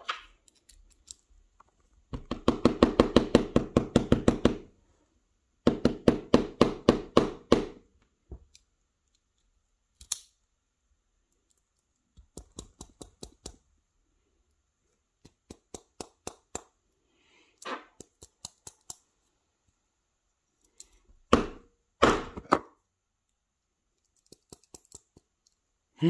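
Small metal challenge-lock cylinder being worked with a thin tool to free a stuck rod that holds the core. Two runs of rapid tapping, about eight taps a second, then scattered clicks with two sharper knocks near the end.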